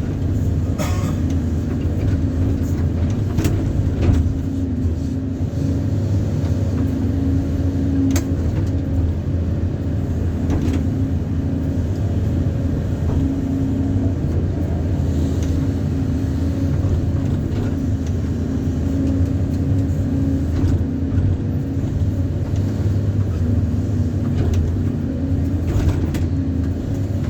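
An engine running steadily at an unchanging speed, an even low drone, with a few faint knocks.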